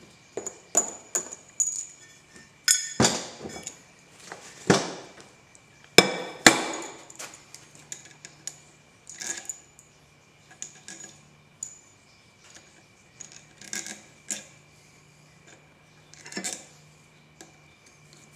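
Irregular metal clanks and clinks as a three-jaw lathe chuck is set onto its backing plate and its bolts and a small tool are handled, the heaviest knocks in the first several seconds. A faint steady hum runs underneath.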